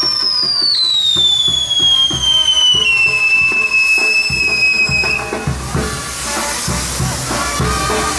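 A whistling firework on a spinning castillo wheel gives one long whistle that falls steadily in pitch and dies out about five seconds in. Under it run the hiss of the burning spark fountains and band music with a drum beat.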